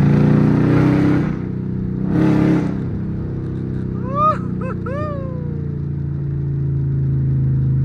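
Cammed 5.7 L Hemi V8 of a Dodge Charger R/T, heard from inside the moving car: two short blips of throttle, one right at the start and another about two seconds in, then steady running. A few short whistle-like chirps come between four and five seconds in.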